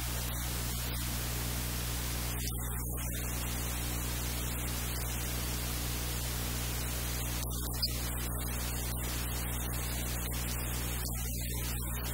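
Steady hiss of static with a low electrical hum underneath, and a single short click about eight seconds in.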